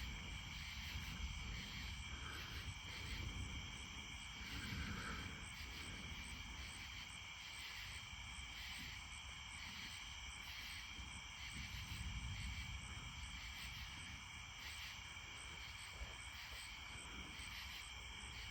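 Crickets and other insects chirping steadily, one higher call pulsing about once a second, over a faint low rumble.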